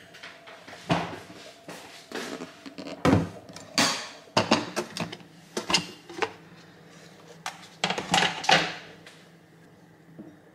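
Dishes and containers being handled: a string of knocks, clicks and clatters, about a dozen sharp hits of varying loudness, dying down near the end.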